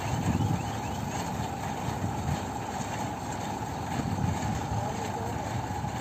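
Massey Ferguson 245 tractor's diesel engine running steadily, powering an Agristar baler hitched behind it.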